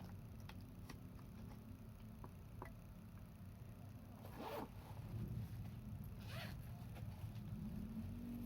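Hard objects being handled: scattered light clicks and two short scraping sounds, about four and a half and six and a half seconds in, over a low steady hum.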